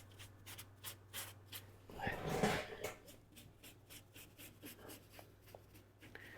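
Paintbrush strokes laying shellac onto the end grain of the wood, a quick run of short scratchy brushing strokes with a louder scuff about two seconds in.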